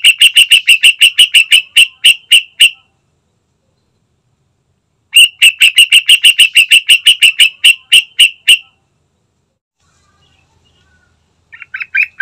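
Yellow-vented bulbul (trucukan) calling: a loud run of sharp, evenly repeated notes, about five a second, that stops, starts again about five seconds in, and gives a brief shorter burst near the end.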